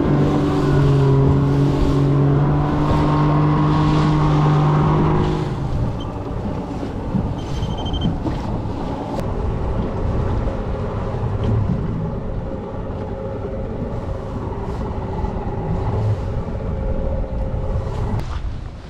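Small boat's two-stroke outboard motor running under way. The engine note is loud and steady at first, then eases off about five seconds in and runs on more quietly, with wind and water noise.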